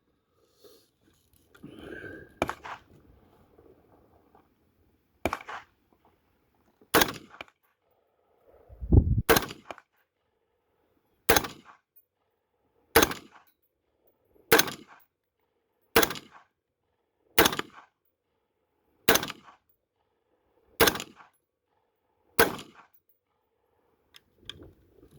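Del-ton AR-15 semi-automatic rifle firing a string of about ten single shots, one every couple of seconds and slightly quicker towards the end.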